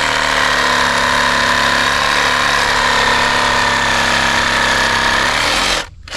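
Power tool running steadily while cutting through a tree root beside a dug-up water line, stopping suddenly near the end.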